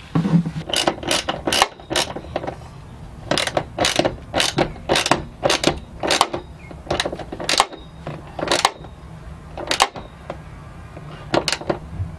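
Socket ratchet clicking in short runs of strokes as the racing harness's floor anchor bolt is run down into its mount.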